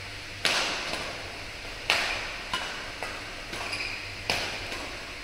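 Badminton rackets striking the shuttlecock in a fast rally: about five sharp cracks at uneven intervals, the first two the loudest, each ringing on briefly in the hall's echo.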